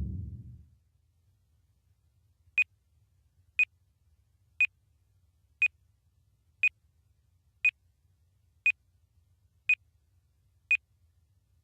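Bomb-timer countdown: short, high electronic beeps, one a second, nine times. Before them, the rumble of an explosion fades out in the first half second.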